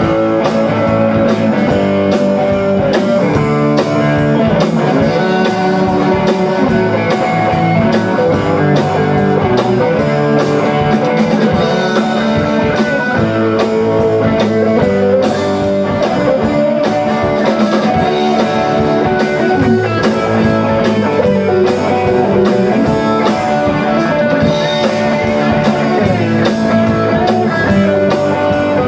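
Rock band playing live with no singing: two electric guitars and an electric bass over a drum kit keeping a steady beat.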